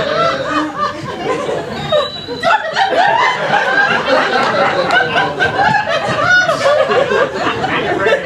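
Theatre audience laughing, many voices overlapping, with a short lull about two and a half seconds in before the laughter picks up again.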